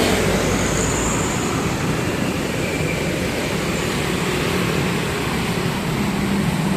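Steady road traffic noise, with the low, even hum of a heavy vehicle's engine running.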